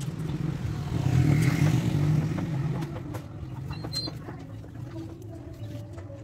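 A road vehicle passing close by, its low rumble and tyre hiss swelling to a peak and fading away within the first three seconds. After it, small sharp clicks of a fishing rod and spinning reel being handled.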